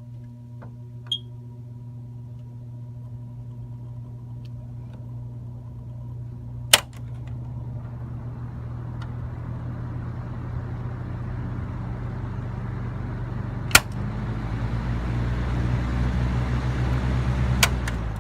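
Small electric motor of a 1972 Panasonic F-1280 box fan running with a steady low hum, the rush of air growing gradually louder. Three sharp clicks cut through it, about a third of the way in, past the middle and near the end.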